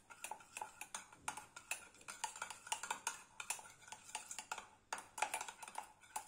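Metal spoon stirring a flour-and-oil paste in a stainless steel bowl: quiet, irregular clicks and scrapes of the spoon against the steel.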